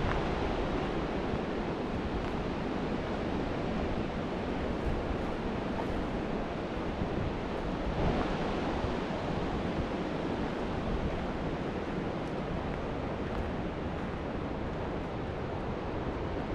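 Wind blowing steadily through trees, a rushing noise with a low rumble of wind buffeting the microphone, swelling briefly about halfway through.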